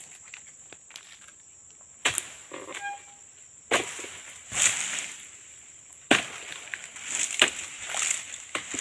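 A long pole-mounted harvesting sickle chopping at an oil palm's frond bases and fruit bunches: about six sharp strokes starting about two seconds in, each followed by a rustle of fronds. A steady high insect drone runs underneath.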